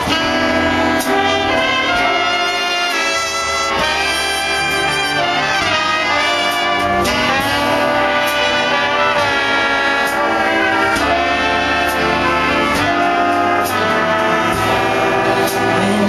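Live big band playing a 1940s swing instrumental, with trumpets, trombones and saxophones sounding together as full sections over drums and upright bass. The band comes in all at once right at the start and plays steadily.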